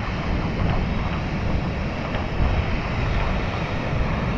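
Steady rushing roar of Dynjandi waterfall, heaviest in the low end.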